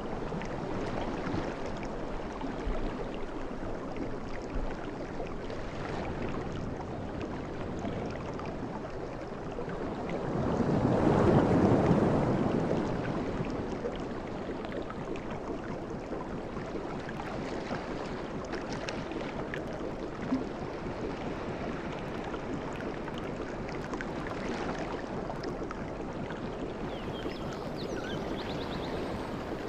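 Sea waves washing onto a beach in a steady wash, with one bigger wave breaking and swelling louder about ten seconds in.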